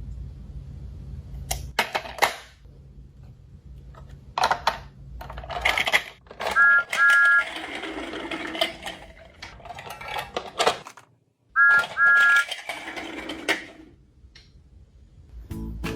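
Small toy mechanism clattering and clicking over a low hum, with two short two-note electronic beeps, each given twice, about six and eleven seconds in.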